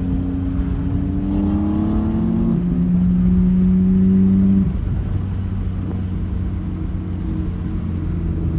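Nissan Skyline R34 GT-R's twin-turbo straight-six on a Tomei titanium rear exhaust, pulling through a gear with its pitch rising steadily for about four and a half seconds. The note then drops suddenly, as at a gear change, and holds steady at lower revs.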